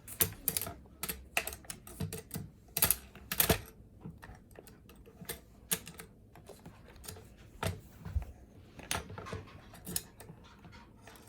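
Irregular light taps and clicks of a pencil writing on a worksheet on a hard table, several strokes a second with pauses between.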